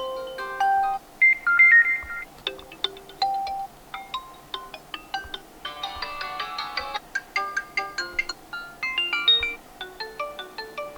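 Redmi 12 default ringtone playing: an electronic melody of short, quick notes over a soft, regular beat.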